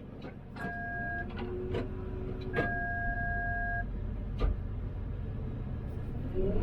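Hyundai HX330A excavator heard from inside the operator's cab: the diesel engine runs low and steady while several sharp clicks and two long steady electronic beeps, the second about a second long, sound from the cab.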